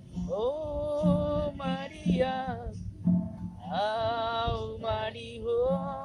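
Casual singing to a strummed acoustic guitar, with long held notes that waver slightly.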